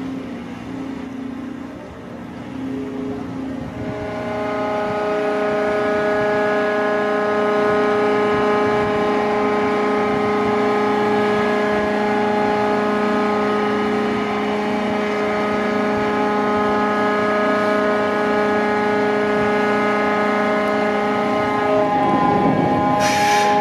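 Ship's horn sounding one long, steady blast that starts about four seconds in, after a lower note sounding briefly on and off. A hiss joins near the end.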